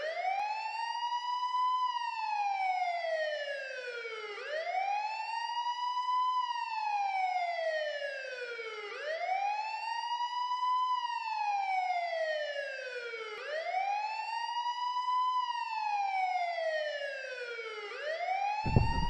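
Wailing siren sound effect, its pitch climbing quickly and then sliding down slowly, repeating about every four and a half seconds. Near the end, louder music cuts in.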